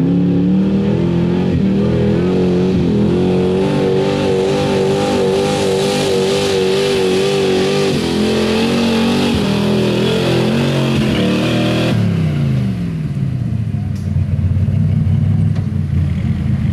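A 1985 Chevrolet pickup's 5.7-litre stock gas V8 runs at high revs under heavy load while it pulls a weighted sled through dirt, its pitch wavering slightly. About twelve seconds in, the revs fall away steeply as the driver lets off at the end of the pull, leaving a lower, rougher engine rumble.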